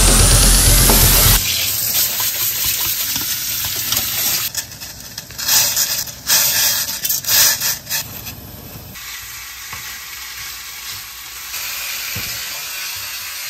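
Loud rock music cuts off about a second in, giving way to kitchen sounds: water splashing and pot sounds with irregular loud bursts in the middle, then a steady sizzle as webfoot octopus and cuttlefish are stir-fried in a frying pan.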